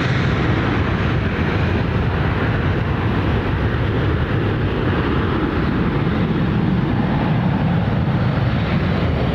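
KLM Embraer regional jet's twin turbofan engines at takeoff thrust as the airliner lifts off and climbs away: a steady, loud rumble.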